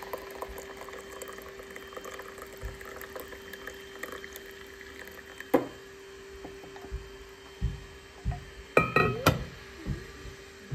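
A hot milky drink poured from a stainless steel IKEA vacuum flask into a ceramic mug, filling it. There is a single knock about five and a half seconds in, and a quick run of sharp clinks near the end.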